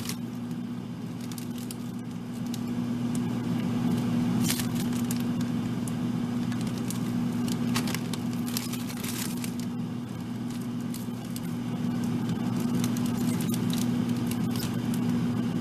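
Frozen food packages being rummaged through in a freezer: plastic bags crinkling and packages clicking and knocking as they are moved, over a steady low hum.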